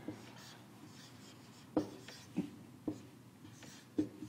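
Dry-erase marker writing on a whiteboard: quiet scratchy strokes with a few sharper squeaks and taps as letters and bonds are drawn, the clearest about two, two and a half, three and four seconds in.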